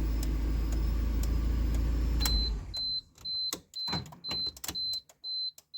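Suzuki Baleno's engine idling steadily; about two and a half seconds in, its running sound stops abruptly. Just before that, a high electronic warning beep starts from the car, repeating about twice a second.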